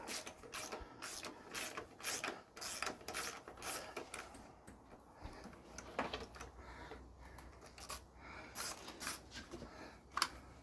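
Hand ratchet on an 18 mm deep socket clicking in quick, irregular runs as a motor-mount bolt is backed out.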